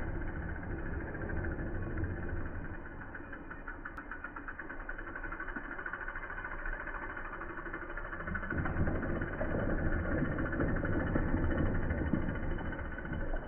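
Steady low rumble of wind on the microphone, with a mountain bike's tyres rolling over packed dirt jumps. The rolling noise gets louder about two-thirds of the way in as the bike comes near.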